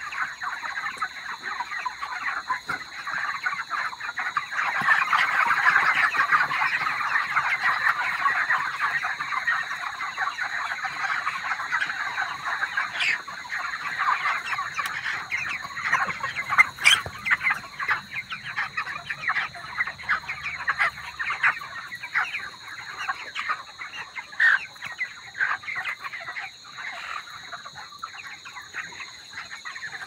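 A large flock of 28-day-old broiler chickens chirping and clucking all at once, a dense continuous chatter of many short calls that thins out somewhat in the second half.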